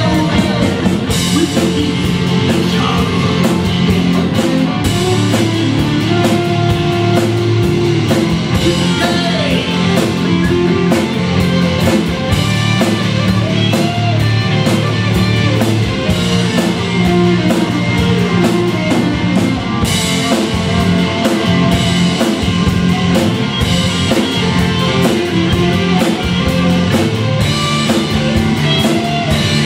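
A live rock band playing loudly and without a break: two electric guitars, an electric bass and a drum kit with steady cymbals.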